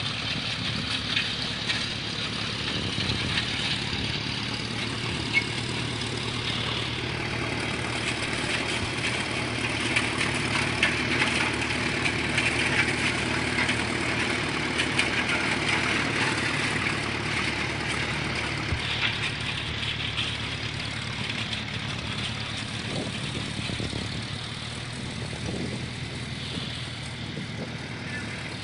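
1926 McCormick-Deering 15-30 tractor's four-cylinder engine running steadily as the tractor drives on its lugged steel wheels, a little louder around the middle.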